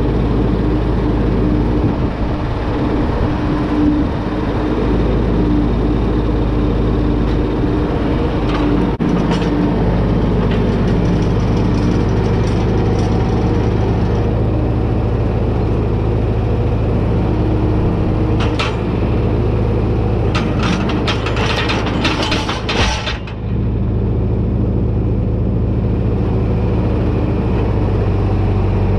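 John Deere 4620 tractor's six-cylinder diesel engine running steadily while the front loader picks up a pallet fork frame. Metal clanks and clicks from the loader and fork frame coupling, with a dense run of sharp clicks and knocks a little after the middle.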